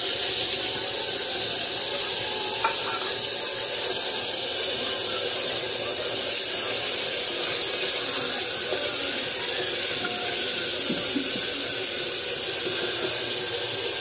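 Wet ground masala paste sizzling in hot oil in an open pressure cooker on a gas stove: a loud, steady hiss that does not let up while a wooden spoon stirs it.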